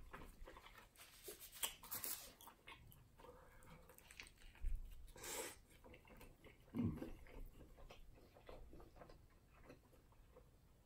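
Faint close-up chewing and mouth sounds of someone eating a sandwich, with a few short, scattered noises.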